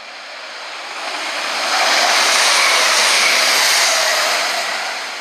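A train passing at speed: a rush of wheel and engine noise swells over about two seconds, holds, then fades, with a faint whine running through it.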